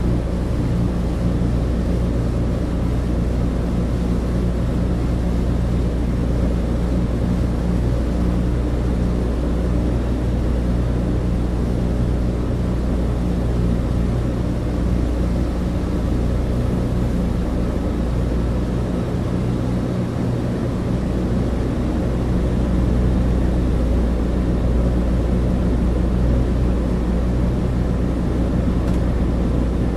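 Cabin interior of a Douglas DC-3: the steady drone of its twin radial piston engines and propellers, with a low hum and a hiss of airflow over it.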